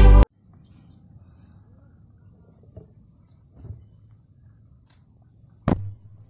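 A burst of electronic music cuts off abruptly at the start. Then a faint steady high hiss, with a few small soft knocks from hands working among twigs and wet mud, and one sharp knock near the end.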